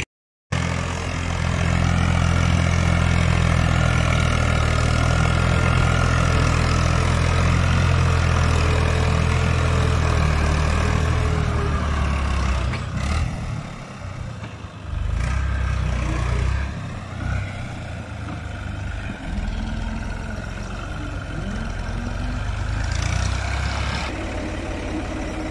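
Ghazi tractor's diesel engine running steadily under load while pulling a five-furrow plough. About halfway through the engine note drops and falters a few times, then settles again at a slightly lower level.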